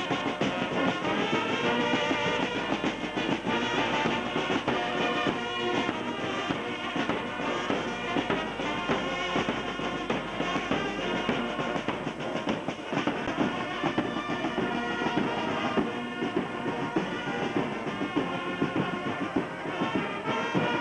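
A brass band playing steadily, with trumpets and trombones.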